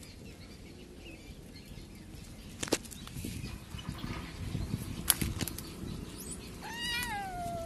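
A kitten meows once near the end, a single call that rises and then falls in pitch. Before it, low rustling and two sharp clicks, the louder one about five seconds in.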